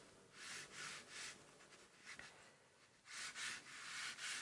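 Faint scratching of a graphite pencil on watercolour paper while sketching lines: a few short strokes in the first second, then a longer run of strokes from about three seconds in.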